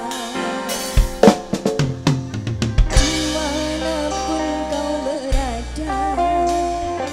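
Live band playing an instrumental song intro: a lead melody with wide vibrato over bass, broken about a second in by a quickening drum fill of snare and tom strokes with bass-drum hits, after which the melody comes back in with the full band.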